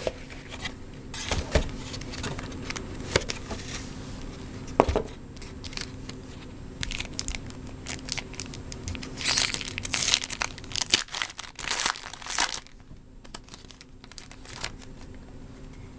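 Sealed baseball card hobby box being ripped open by hand: plastic wrapping torn and crinkled in irregular spells, with the densest crinkling from about nine to twelve seconds in, then quieter handling.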